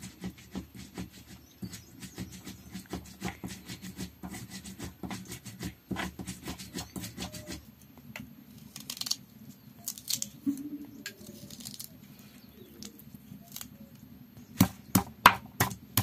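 Stone on stone: a hand stone rolled and rubbed over a flat grinding stone (Nepali silauto and lohoro), grinding spice paste with a gritty scraping and many small clicks. Partway through it thins to scattered light clicks, and near the end come sharp, loud knocks of the hand stone pounding on the slab, a few to a second.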